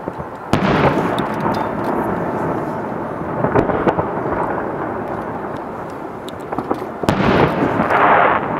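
Aerial fireworks bursting. A sharp bang comes about half a second in, followed by a rolling rumble dotted with crackles, then another loud burst about seven seconds in.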